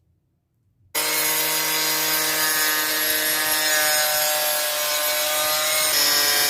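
An electric power tool starts about a second in and runs steadily against wood with a buzzing whine. Its pitch dips slightly near the end.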